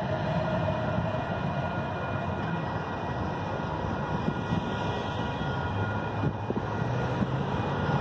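Wind rumbling on the microphone over road traffic noise as the crossing clears, with a car starting across the tracks near the end.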